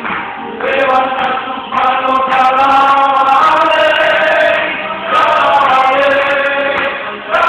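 A group of men singing a religious song together into a microphone, in phrases of long held notes with short breaks between them.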